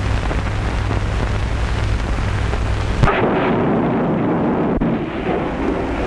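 An explosive charge going off about three seconds in: a sudden blast followed by a dull rumble for a couple of seconds, over the steady low hum and hiss of an old film soundtrack.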